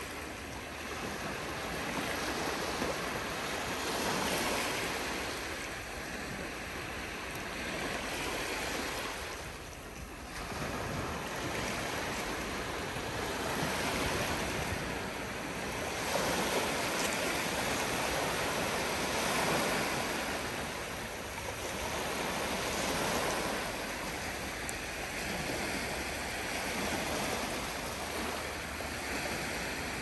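Gentle surf of a calm Black Sea: small waves breaking and washing up the shore, a steady rush that swells and fades every few seconds, with a brief lull about ten seconds in.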